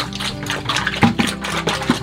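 Background music: sustained notes over a quick, steady rhythm.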